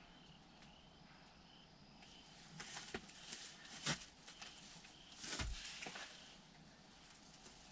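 Handling noise inside a ground blind as a bowhunter shifts and lowers his hands to his compound bow: a few rustles and light clicks, a sharp knock about four seconds in, and a rustle with a dull thump about five and a half seconds in.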